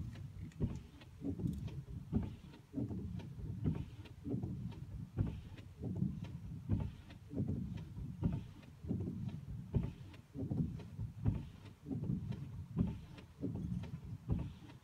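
Van windscreen wipers running continuously, heard from inside the cab: a soft swish with each sweep, about every three-quarters of a second, over low knocking and hum.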